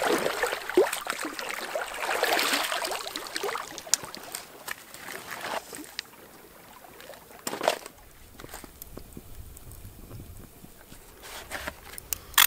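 Lake water splashing and sloshing as a container is plunged in and filled at the shoreline, for about the first four seconds. After that it goes much quieter, with a few small scattered clicks and knocks.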